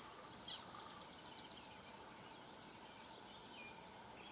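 Faint outdoor ambience: a quiet steady hiss with a short, high bird chirp about half a second in and fainter chirps a few seconds later.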